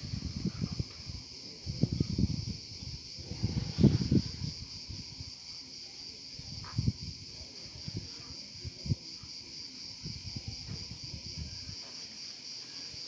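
Steady high insect chorus, a fast pulsing buzz that runs on throughout. Low rumbling thumps on the microphone come in the first four seconds, loudest about four seconds in, with a few single thumps later.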